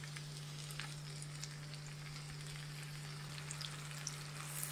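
Chopped onions frying in hot oil in a frying pan: a steady sizzle with scattered small pops and crackles.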